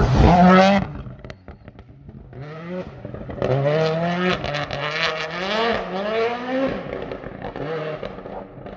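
Toyota Yaris WRC rally car's turbocharged four-cylinder engine revving hard as it passes close in the first second, then fading. After that it is heard more distantly pulling away, its pitch climbing and dropping back several times as it goes up through the gears.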